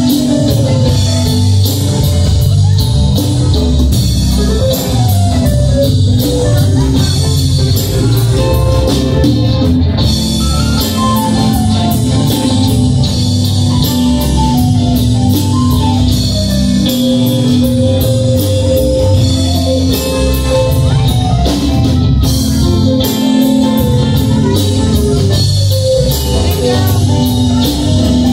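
A live rock band with congas playing a song: electric guitars, bass guitar, drum kit and conga drums, loud and continuous.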